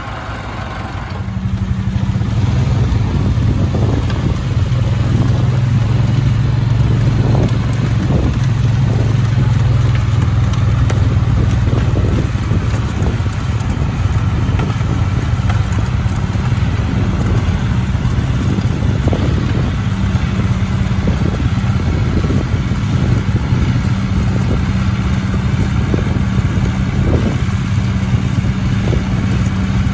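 John Deere tractor's diesel engine running steadily as it pulls a loaded muck spreader, starting up loudly about a second in.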